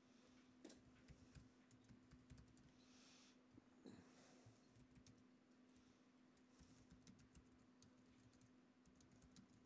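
Faint typing on an Apple laptop keyboard: scattered, irregular key clicks.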